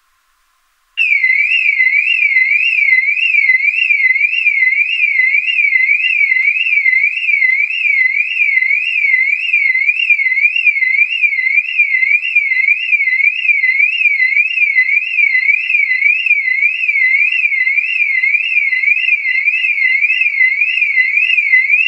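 Electronic siren sound effect: a high, pure warbling tone sweeping quickly up and down, about three sweeps a second, starting about a second in and running on steadily.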